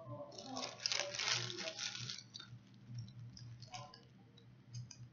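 Small packet of Pakistani dip being handled: a dense run of crackling, rattling clicks lasting about two seconds, then a few scattered clicks.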